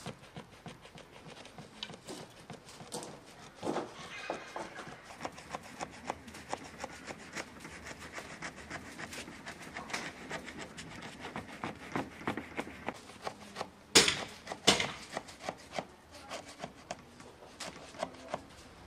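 A small knife scoring layered raw baklava dough in an aluminium tray: a run of short scraping clicks as the blade draws cut after cut. Two sharper, louder clicks come about three-quarters of the way through.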